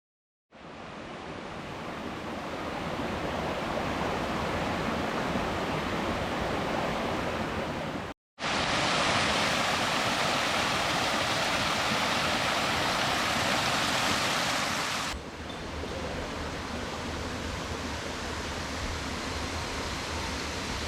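Steady rushing noise, of the kind made by running water or wind, in three edited stretches. It starts abruptly about half a second in, breaks off for a moment at about eight seconds and comes back louder, then drops to a duller, quieter rush at about fifteen seconds.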